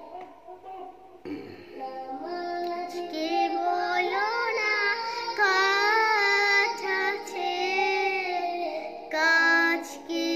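A young boy singing a Bengali Islamic gojol about namaz (prayer), starting about a second in with long, held phrases.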